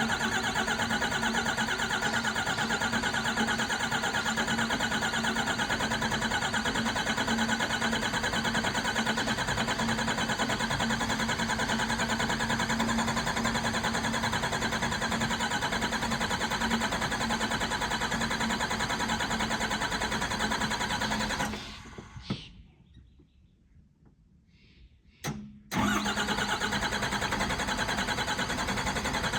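12-valve Cummins diesel in a 1985 Ford F-250, running steadily on a cold start without a grid heater. About 22 seconds in it winds down and stalls, goes nearly silent for a few seconds, then catches again suddenly. The stall and restart come from the hard starting caused by a small air leak at the overflow valve.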